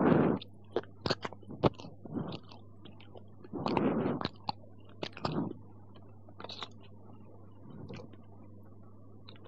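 Irregular crunching and rustling noises with sharp clicks, close to the microphone, over a steady low hum from the analog tape recording.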